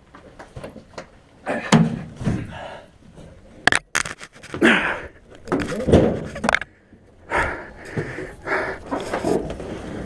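Clunks, thuds and scraping as a Kawasaki Brute Force 300 ATV is manhandled up into a pickup truck bed, with a sharp knock about four seconds in. No engine is running.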